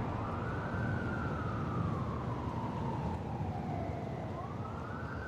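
Emergency-vehicle siren wailing: a slow rise in pitch, a long fall, then rising again near the end, over a low steady rumble.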